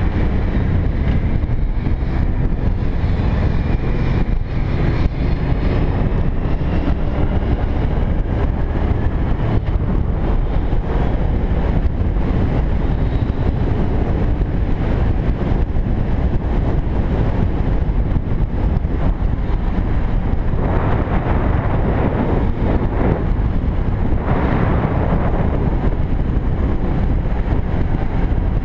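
Cruiser motorcycle's engine running at road speed, heard from a camera mounted on the bike, under steady wind noise on the microphone. The engine note rises at the start as the bike accelerates, and the wind grows brighter for a few seconds later on.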